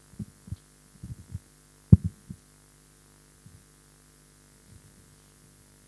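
Steady electrical mains hum on the sound system, with a cluster of short, dull low thumps in the first two and a half seconds, the loudest about two seconds in, and a few faint ones later.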